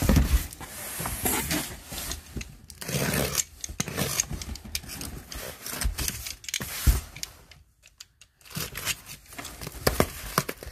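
Cardboard boxes being shifted and rubbed against each other inside a larger shipping box, with scrapes and clicks, and a box cutter slicing the packing tape on a small box.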